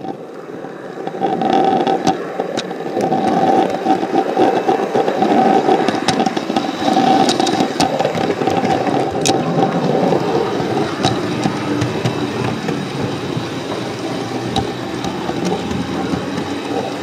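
Model train running along the track, heard close up from on board: a steady motor and gear whine with running wheel noise and scattered sharp clicks as the wheels cross rail joints. It starts abruptly at the beginning.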